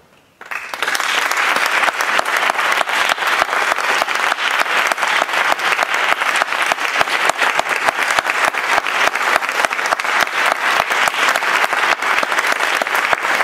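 Audience applauding, breaking out about half a second in and going on steadily with dense clapping.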